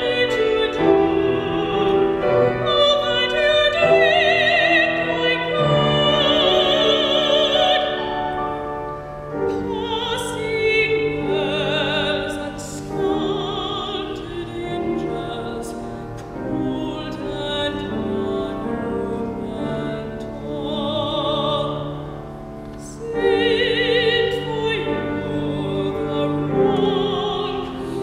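A woman singing in a classical operatic soprano style, holding long notes with a wide vibrato over instrumental accompaniment. The phrases swell and ease, dipping quieter about two-thirds of the way through before rising again.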